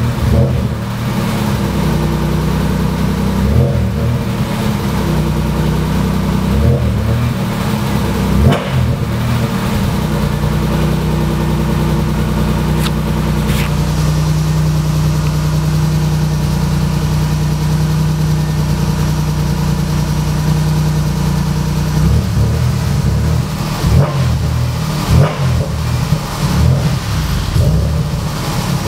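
Turbocharged Mitsubishi 6G74 3.5-litre V6 idling steadily, heard from inside the car, with short throttle blips a few times in the first ten seconds and several more near the end.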